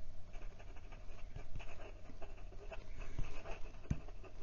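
Moonman P135 fountain pen's fine nib scratching quietly over notebook paper in quick handwriting strokes.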